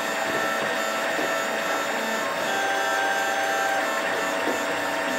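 3D printer printing: its stepper motors whine in short tones that keep changing pitch as the print head moves, over a steady hiss.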